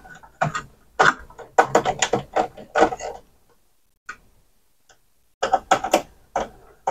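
Irregular plastic clicks and taps of hands handling wiring, connectors and a screwdriver inside an opened CD changer. The clicks come in two spells, with about two seconds of quiet in between.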